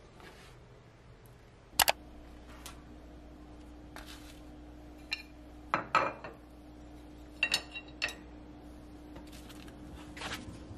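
Scattered sharp clicks and clinks of wooden chopsticks against a ceramic plate and plastic-wrapped foam food trays being handled on a kitchen counter, with a loud pair of clicks about two seconds in. A steady low hum runs underneath.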